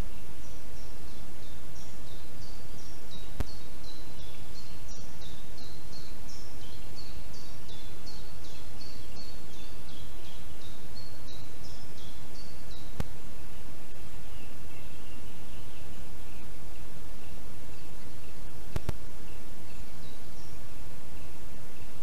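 A small songbird singing a quick run of high, falling notes over the first half, then fainter and lower notes, above a steady hiss. A few faint clicks stand out.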